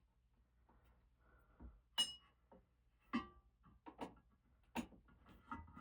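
Scattered metallic clicks and knocks of hands and tools handling a ceiling fan's metal canopy and mounting hardware, one tap about two seconds in ringing briefly, with three or four sharper knocks after it.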